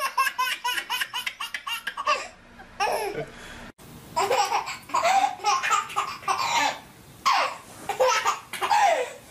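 A baby laughing hard in quick repeated bursts. After a cut a little under four seconds in, more laughing, in longer rising and falling peals.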